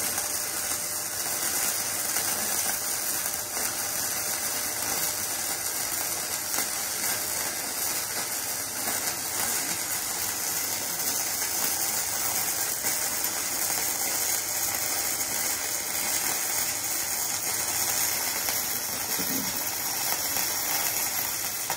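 KOBE MIG-272 PRO MIG welder laying a continuous bead on box-section steel at low current, about 50 A: a steady crackling, sizzling arc that cuts off suddenly at the very end.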